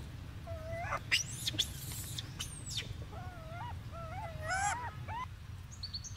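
Short, wavering, high-pitched animal calls: one just before a second in and a run of them from about three to five seconds. Sharp rising squeaks come between them, and a low steady rumble runs underneath.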